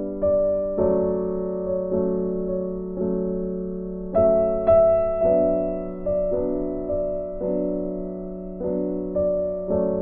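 Slow piano music: notes and chords struck about once a second, each left to ring and fade, with a higher, louder note about four seconds in.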